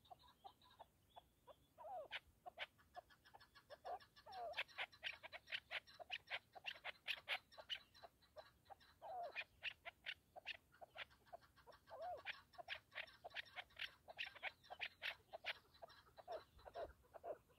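Chukar partridge calling: a fast run of short, sharp clucking notes, several a second, with a few lower drawn-out notes mixed in.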